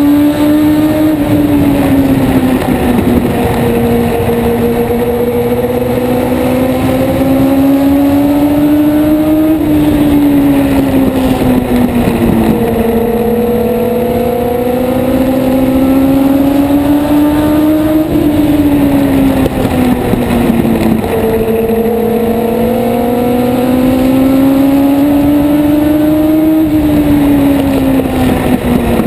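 Race car engine heard from onboard, running hard through laps of a short oval: its pitch climbs steadily for several seconds, then drops quickly, about every eight and a half seconds, once each lap, three times over.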